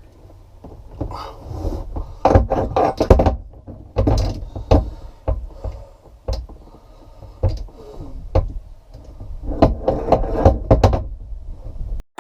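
Irregular knocks and clunks of hands working on a boat's rotary steering helm and cable, in clusters of quick hits with pauses between.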